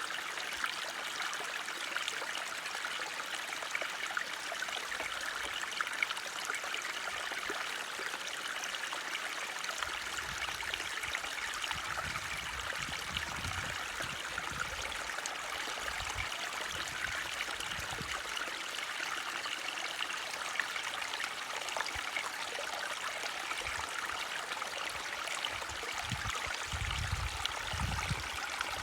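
A forest stream flowing with a steady rush and trickle. Low rumbles come and go in the middle and near the end.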